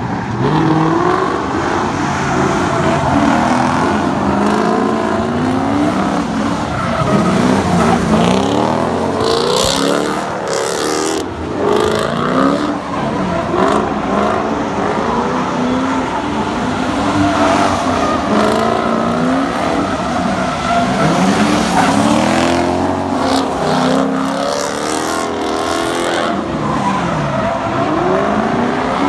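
Drift cars' engines revving up and down over and over as they slide around on wet pavement, several at once, with a few bursts of hissing tyre noise.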